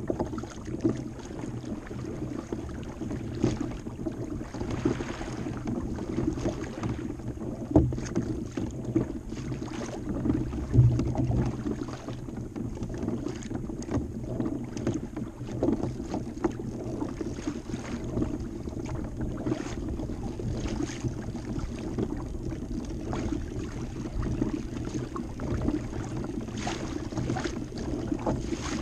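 Water lapping and sloshing against a plastic kayak hull on open water, a steady wash with a low hum under it. Two sharp knocks stand out, about 8 and 11 seconds in.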